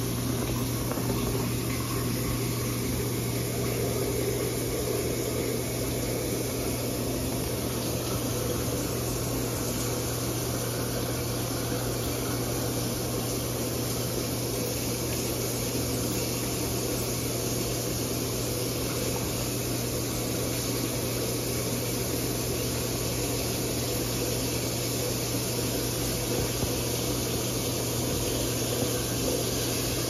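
A steady low machine hum under an even hiss, unchanging throughout.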